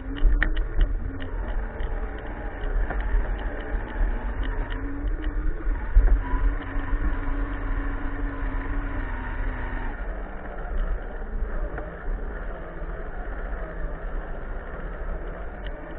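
Onboard sound of a radio-controlled scale crawler driving over dirt: the whine of its electric motor and gearbox rises and falls with the throttle, over a rumble and rattle of the chassis on the ground. The whine dies away about ten seconds in.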